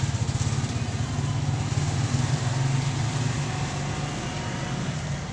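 Motorcycle engine idling steadily with a fast, even low pulse, growing a little fainter toward the end.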